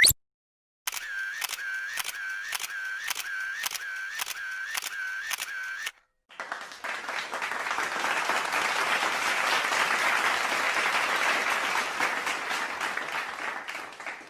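Two sound-effect clips in a row. First, a rhythmic clicking chirp that repeats about twice a second for about five seconds and then stops abruptly. After a short gap comes a long stretch of applause that swells and holds.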